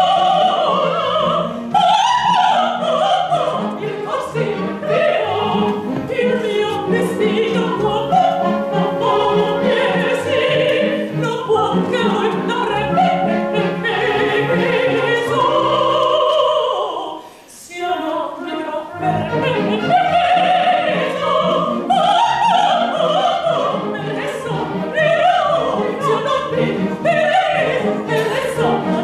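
A soprano singing an operatic aria with strong vibrato, accompanied by an orchestra with bowed strings. The music drops out briefly about seventeen seconds in, then resumes.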